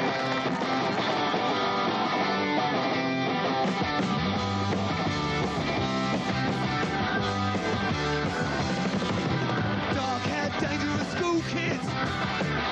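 Live punk/new wave rock band playing an instrumental passage on electric guitars, bass and drums.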